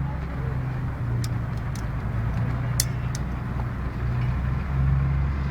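A steady low motor rumble, like an engine running nearby, with a few short sharp clicks in the first half.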